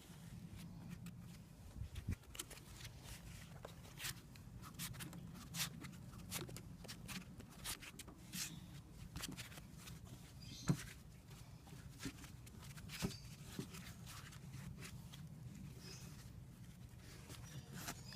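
Faint, scattered metal clicks and scrapes over a low steady hum, as a screw extractor is turned to back a stripped deck screw out of the wood.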